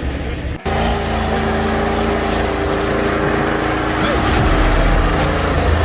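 Off-road 4x4's engine running steadily under load, with a low rumble, broken by a short cut about half a second in.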